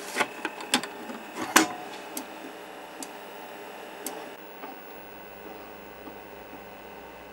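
Apple II-compatible 5.25-inch floppy drive booting a DOS 3.3 disk: a quiet whir of the spinning disk with irregular clicks of the read head stepping, then the motor stops about four seconds in. This is the sound of a working drive, much quieter than an Apple drive.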